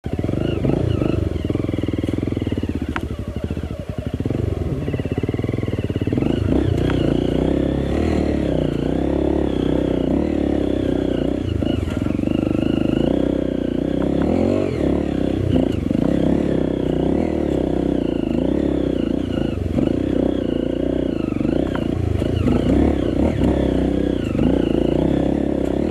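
Dirt bike engine running under load on a steep uphill trail, its revs rising and falling continuously as the throttle is worked.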